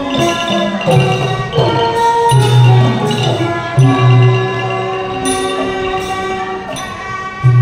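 Thai piphat mon ensemble playing: the ringing notes of Mon-style gong circles (khong mon) and mallet xylophones over a deep note that sounds at intervals.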